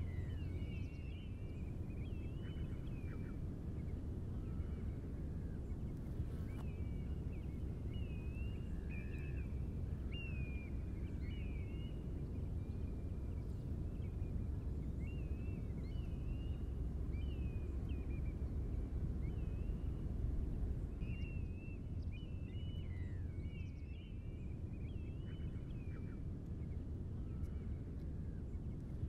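Small birds chirping and twittering in short, repeated high phrases, over a steady low background rumble.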